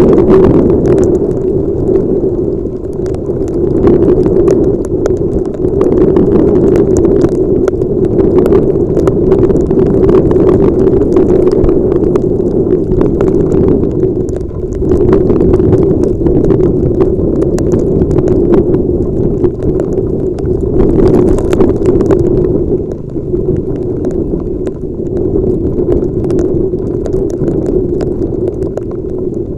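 Steady loud rumble of wind and riding noise on a helmet-mounted camera's microphone in heavy rain, with frequent sharp ticks of raindrops striking the camera.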